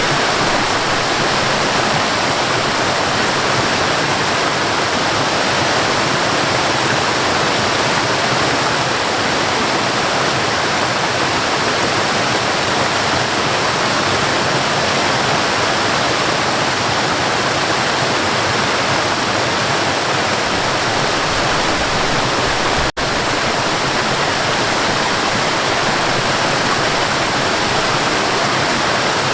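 Waterfall: a steady, loud rush of falling water, with one split-second gap in the sound about two-thirds of the way through.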